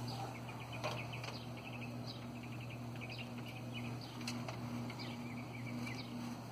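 Quiet outdoor ambience: short high chirps scattered over a steady low hum, with a fainter pulsing tone just above the hum.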